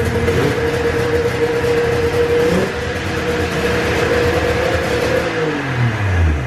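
Polaris Indy XLT three-cylinder two-stroke snowmobile engine running steadily on its choke after years of sitting. About five seconds in, its pitch falls steeply as the engine winds down toward a stop.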